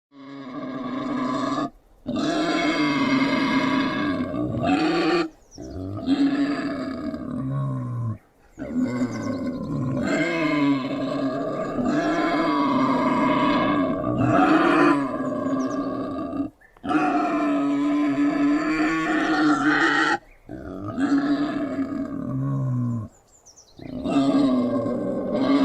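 Wild boar growling in a string of about seven long, drawn-out calls, each lasting several seconds with short breaks between them; it starts suddenly at the outset.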